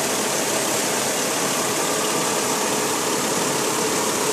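Ford Freestar minivan engine idling steadily with an even rushing hiss, while air is burped out of its coolant system.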